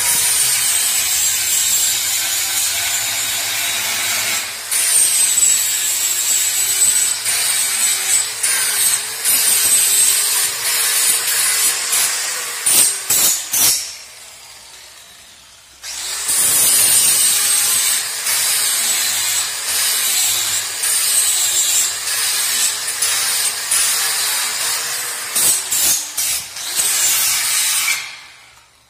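Angle grinder with a flap disc sanding down a weld bead on steel gate tubing. It runs in two long spells, its pitch wavering as the disc is pressed into the work, stops briefly about 14 seconds in and cuts off near the end.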